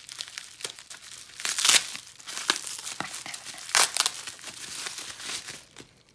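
Bubble wrap crinkling and crackling as it is pulled off a plastic tub, with two louder bursts of crackling about one and a half and four seconds in, dying away near the end.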